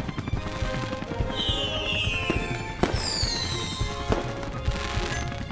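Cartoon firework sound effects over background music with a steady beat: two whistles falling in pitch, about a second in and again about three seconds in, and a few sharp bangs.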